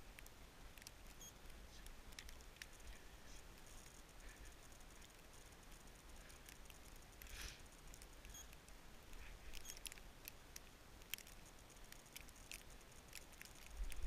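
Near silence: a quiet outdoor background with faint, scattered small ticks and clicks and a low rumble.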